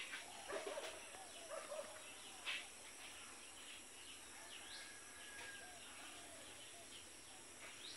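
Quiet outdoor background with a few faint, scattered bird chirps, including a short rising whistle about halfway through.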